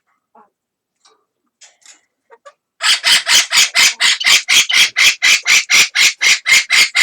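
Amazon parrot calling: a few faint chirps, then about three seconds in a loud, rapid run of harsh squawks, about four a second.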